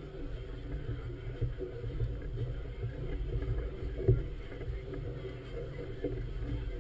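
Wind buffeting the microphone over choppy harbour water sloshing, a steady low rumble, with one short knock about four seconds in.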